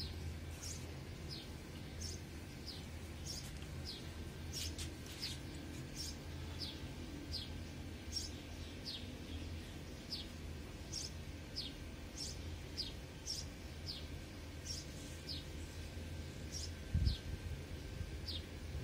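A bird chirping over and over, short chirps that fall in pitch, one or two a second, over a steady low hum. A couple of soft knocks come near the end.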